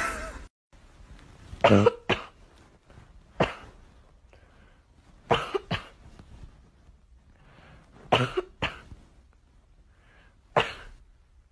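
Short, sharp coughs, some single and some in quick pairs, about every two to three seconds.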